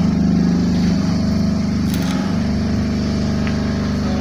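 An engine running steadily at a constant pitch, with a small click about two seconds in.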